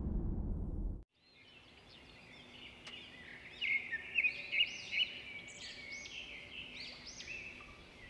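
A low rumble that cuts off abruptly about a second in, then birds chirping: many overlapping high, arching whistled notes that fade in and keep on, with a few louder calls in the middle.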